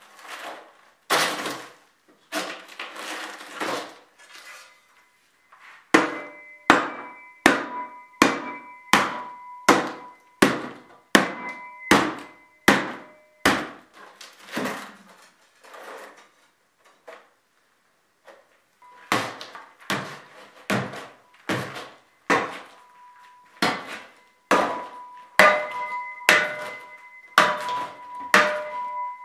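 Hammer strikes repeated about twice a second, in two long runs, each strike leaving a ringing tone.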